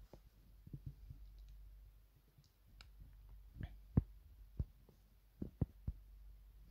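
Irregular soft taps and clicks of fingers on a phone's touchscreen and case while editing, about a dozen in all, the loudest about four seconds in.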